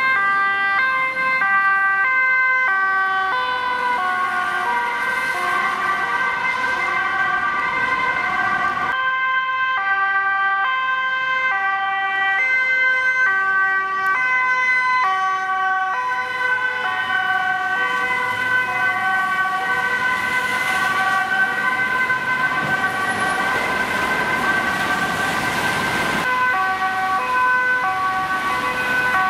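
Two-tone sirens of Dutch emergency vehicles, an ambulance and a police car, switching between a high and a low note about every half second, with more than one siren sounding at once. The sound changes abruptly about nine seconds in and again near the end.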